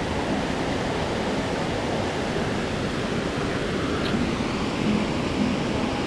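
Steady rush of a waterfall, an even noise of falling water without breaks.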